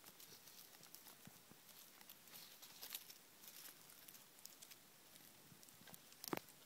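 Faint crackling and rustling of dry leaf litter, small scattered ticks, with one sharper click near the end.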